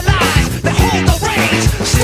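Music with a steady beat and a strong bass line.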